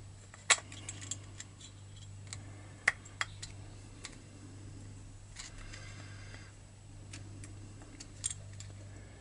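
Small sharp metal clicks and light scraping of a screwdriver tip working a retaining washer onto the starter-pawl pivot pin of a chainsaw's magneto flywheel. The clicks come singly and irregularly, the sharpest about half a second and about three seconds in.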